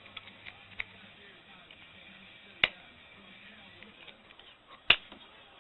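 Light clicks and taps of small hand tools on a Motorola RAZR flip phone's plastic and metal parts, with two sharp, loud clicks, one about two and a half seconds in and one near the end.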